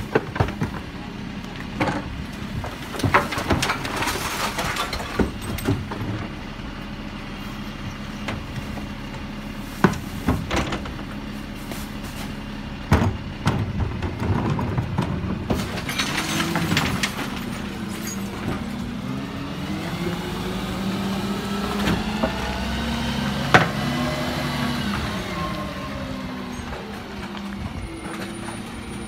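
Refuse collection lorry's diesel engine running, with bangs and clatter as wheelie bins are lifted and emptied at its rear. There is a burst of hiss about halfway, then a whine that rises and falls in pitch as the lorry moves off.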